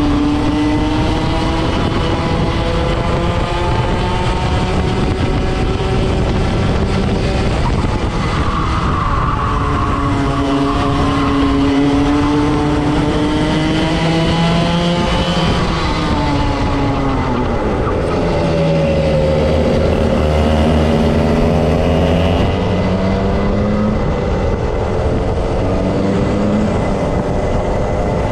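Racing kart engine at full race pace, its pitch repeatedly climbing on the straights and dropping into the corners.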